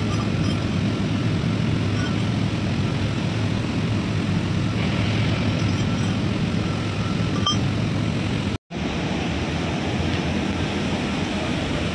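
Steady low rumbling background noise with a hiss on top. It drops out for a split second about eight and a half seconds in.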